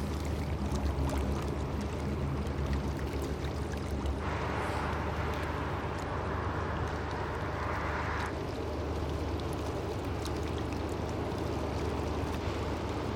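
Low, steady drone of a passing cargo ship's engine, with rushing water for a few seconds in the middle.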